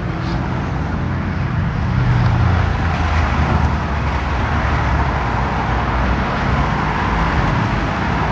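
Steady road traffic noise from passing cars, with a low rumble.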